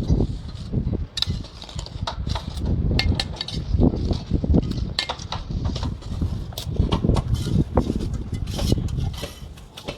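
Mason's trowel clinking, scraping and tapping against concrete blocks and mortar: a quick, irregular run of sharp metallic knocks over a steady low rumble.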